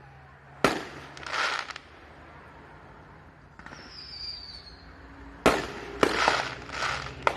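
Fireworks: a sharp bang about half a second in, followed by a crackling spray. A faint falling whistle comes a little past the middle, then a quick run of bangs with crackle near the end.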